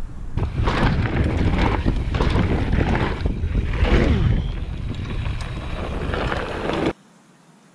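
Wind buffeting a bike-mounted camera's microphone over the rumble and rattle of a mountain bike riding fast down a dirt trail. It cuts off abruptly near the end.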